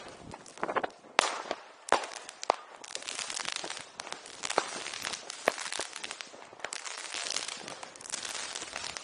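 Firecrackers going off: a few separate sharp bangs in the first couple of seconds, then a dense, continuous crackle of many small reports.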